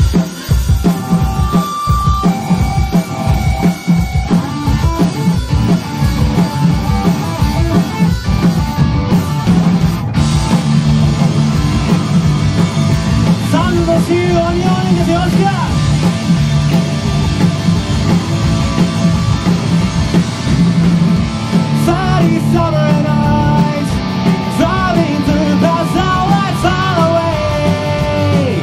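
Rock band playing live: a pounding drum kit under electric guitars and bass, with a wavering melody line coming in over the band about halfway through.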